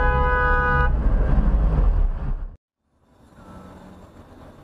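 Loud rumbling traffic and road noise with a car horn sounding for about a second at the start; it cuts off abruptly about two and a half seconds in. After that comes quieter steady road noise from a car driving.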